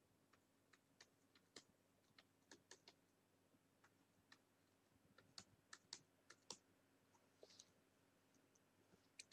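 About twenty faint, sharp clicks and taps of computer input, irregularly spaced, over near silence.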